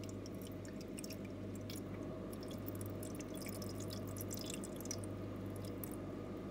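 Faint, irregular water drips in the plastic water tank of an Arçelik Telve Turkish coffee machine, over a steady low hum.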